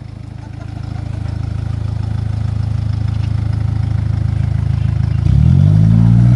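Hyundai Terracan SUV's engine running at low revs as it creeps down a steep dirt slope, growing slowly louder as it nears. About five seconds in the engine note jumps much louder and rises in pitch.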